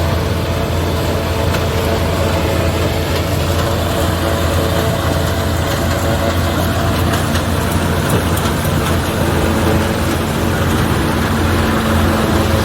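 Tractor engine and forage chopper running steadily while chopping maize for silage: a loud, even drone with a low hum and a set of steady tones above it.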